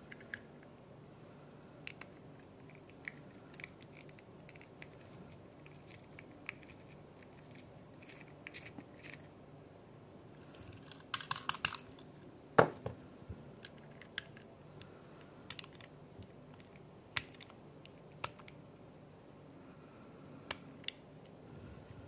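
Scattered light clicks and taps of small hard parts and hand tools being handled, as in work on a diecast model car. A quick run of clicks comes about halfway through, followed by one sharper tap.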